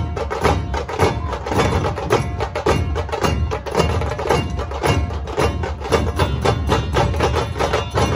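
A dhol-tasha ensemble playing at full volume: many large dhol drums beating together in a steady heavy rhythm, under fast, sharp, cracking strikes of tasha snare drums.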